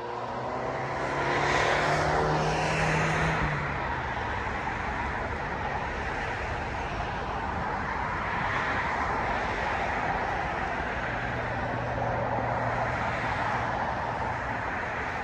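A passing vehicle's engine noise, loudest about two seconds in with its pitch falling as it goes by, then a steady rumble.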